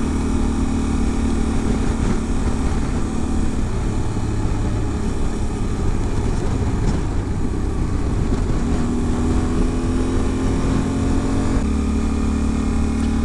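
Yamaha Ténéré 700's parallel-twin engine running under way on a dirt road, its note steady, with wind noise rushing over the microphone. The engine note blurs in the middle and comes back clearly about two-thirds of the way through.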